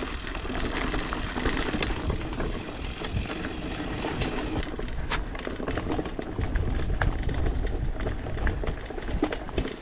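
Canyon Grand Canyon hardtail mountain bike rolling fast over a rough dirt trail: tyres crunching on the loose surface and the bike rattling over bumps in many small irregular clicks. Wind buffets the camera microphone, heaviest in the second half.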